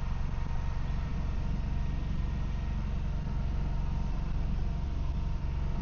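Truck engine running steadily at idle.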